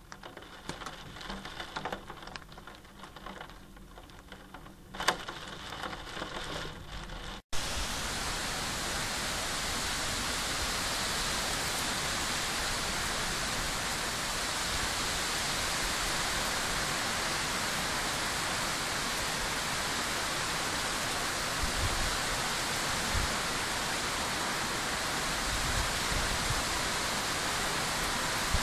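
Raindrops tapping irregularly on glass, with one sharp knock about five seconds in; then, after an abrupt change, a loud steady hiss of heavy thunderstorm rain.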